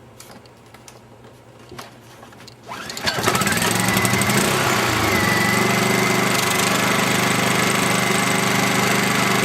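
Honda portable generator's small four-stroke engine starting up: it catches about three seconds in, then settles into a steady run with a faint high whine.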